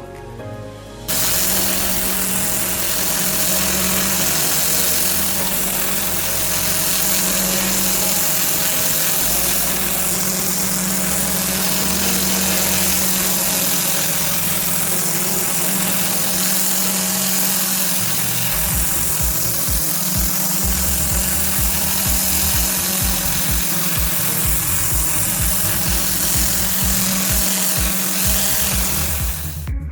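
Pressure washer running, a loud, steady hiss of the water jet on block paving over a constant machine hum; it starts suddenly about a second in and stops just before the end.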